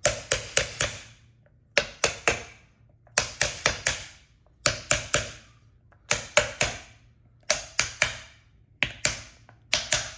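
Hammer blows on a solid scooter tire being driven down onto its rim, struck in quick groups of three or four about every second and a half as the work moves around the wheel.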